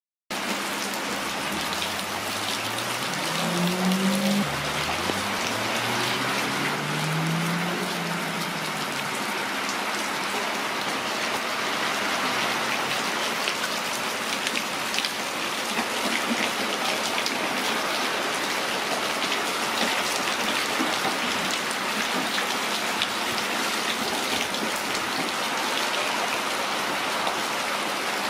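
Steady rain falling onto puddles and a flooded concrete path, a continuous hiss of drops splashing into standing water. A low tone rises in pitch twice within the first eight seconds.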